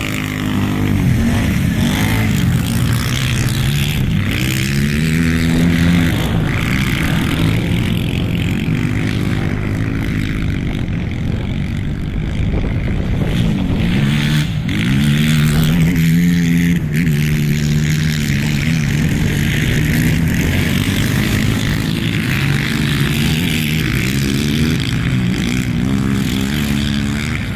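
Racing quad bike engines running hard, revving up and easing off again and again, so the pitch rises and falls every few seconds.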